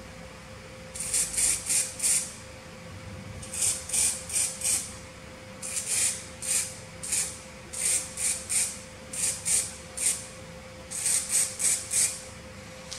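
Aerosol can of acrylic spray paint sprayed in short hissing puffs, in quick groups of three or four with pauses of about a second between the groups.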